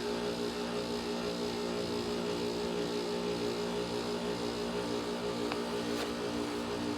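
2008 Bryant Preferred Series heat pump running steadily through its defrost cycle, its compressor giving a constant hum, with two faint ticks a little after five and six seconds in.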